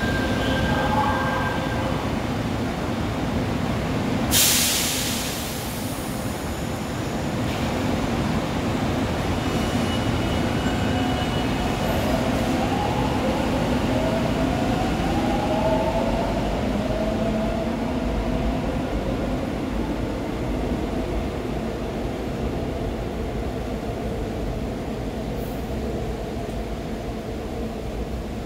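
Seoul Subway Line 4 electric train running through the station without stopping, with a steady rumble of wheels on rail. About four seconds in comes a short, sudden loud hiss. Between about twelve and seventeen seconds, whining tones rise in pitch as the train pulls away.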